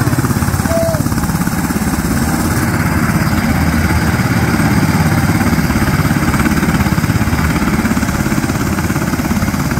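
UH-60 Black Hawk helicopter running on the ground before takeoff, its twin turboshaft engines and four-blade main rotor turning: a steady, rapid rotor chop over a loud engine rush.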